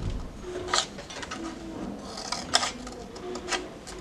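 Scissors cutting through card: a few sharp snips about a second apart, with the card rustling and rubbing as it is handled between cuts. The cuts take triangles out of the corners of a scored box base.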